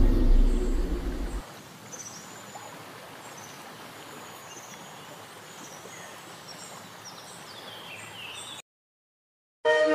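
The low rumble of an intro boom sound effect dies away and cuts off about a second and a half in. Faint outdoor background follows, with small high bird chirps. It drops to a second of silence, and music with a flute starts right at the end.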